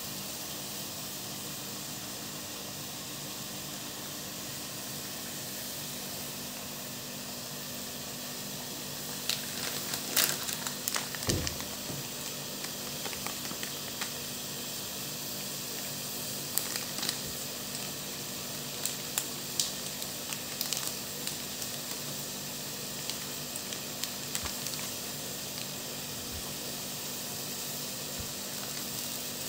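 A steady hiss with a low hum, then from about nine seconds in the sharp crackling and popping of food frying in a hot pan, with a dull knock about eleven seconds in.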